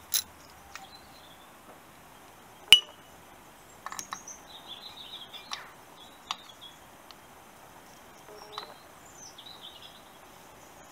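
Sharp metal clinks of a tool on a nut as it is undone from the motorcycle frame, a few light ones at the start and one loud clink a little under three seconds in. Birds chirp faintly in the background in the second half.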